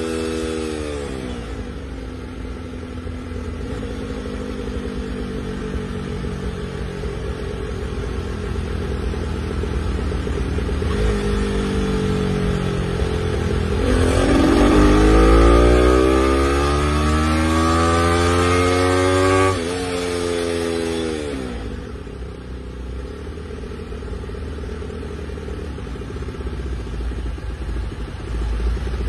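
Honda C90's 90cc single-cylinder four-stroke engine run on a motorcycle dyno: the revs fall back at first, hold low and steady for several seconds, then climb, dip briefly about halfway, and climb again to the loudest point. The throttle is then shut and the engine winds down to a steady idle for the rest.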